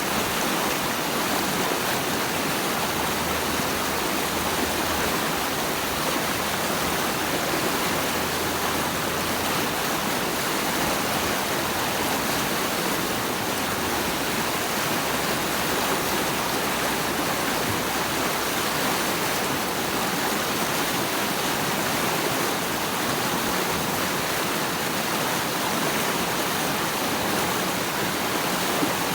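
Steady, unbroken rush of flowing water, like a waterfall or fast stream, an even noise that neither rises nor falls.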